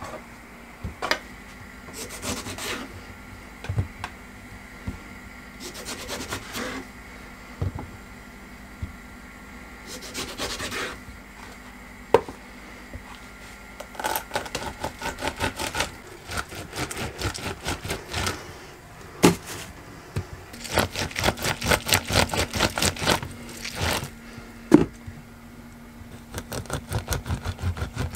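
Lime halves twisted and pressed on a plastic hand citrus reamer: runs of quick rasping, rubbing strokes, several strokes a second, with knocks on the wooden counter between the runs.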